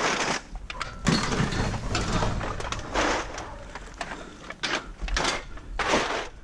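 Scrap metal being picked up and handled: a string of irregular scrapes and rattles, about six in all.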